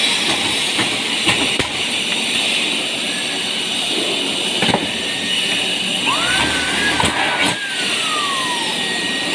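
Cordless drill working on light-gauge steel framing: its motor whines up about six seconds in, runs briefly under load, then winds down, falling in pitch. Before that come a few sharp metallic clicks and knocks as the steel pieces are handled.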